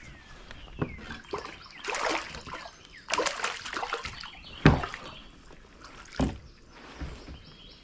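Water splashing and sloshing beside a kayak in irregular bursts, with a sharp knock about halfway through and another a second and a half later.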